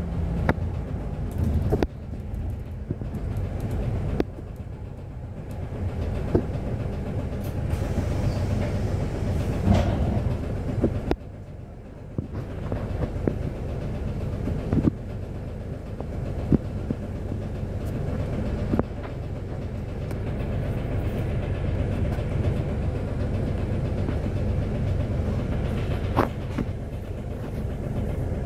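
Cabin sound aboard an Alexander Dennis Enviro 400H diesel-electric hybrid double-decker bus: a low drivetrain rumble with scattered interior rattles and knocks as it drives. About halfway through it slows and stands at a bus stop, leaving a steady low hum.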